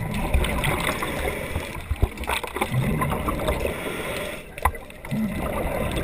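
Underwater water noise picked up through a diving camera's housing: gurgling bubbles and a rushing wash with scattered sharp clicks and knocks, dipping briefly about four and a half seconds in.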